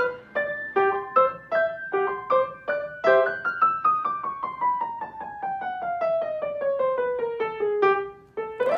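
Upright piano played solo: a figure of notes struck about every half second, then a long run of quick notes descending steadily in pitch, and a fast sweep up the keyboard near the end.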